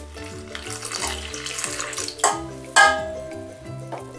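Milk being poured into the flour in a stainless steel stand-mixer bowl, a steady splashing pour that stops a little past halfway, followed by two sharp knocks, the second ringing briefly. Background music throughout.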